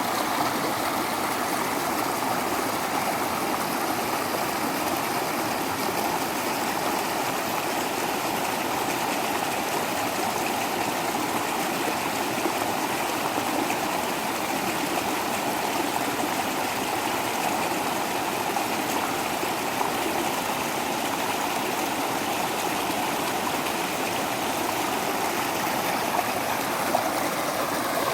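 Small waterfall: water falling and rushing in a steady, even splash.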